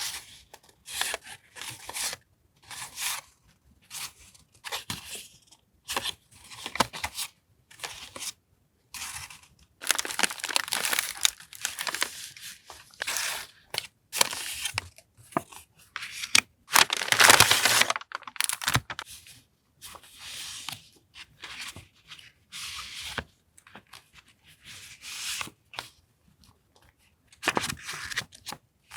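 Paper journaling supplies and their packaging being handled: a string of short rustles, crinkles and tearing sounds with brief pauses between them. There are longer stretches about ten seconds in, and the loudest comes about seventeen seconds in.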